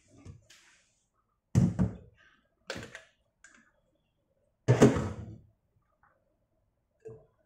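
A blender jar being lifted off its base and handled on the countertop. Two loud clunks come about a second and a half in and just before five seconds, with a few softer knocks between them and one near the end.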